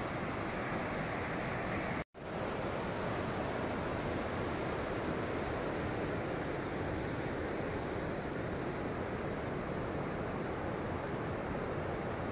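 Steady rush of river water flowing, with a brief gap of silence about two seconds in.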